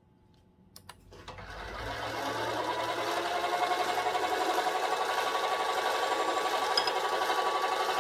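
A small metal lathe spins up after a couple of clicks and runs with a steady whine while a hand file is held against the turning aluminium standoff to clean up and deburr its edge.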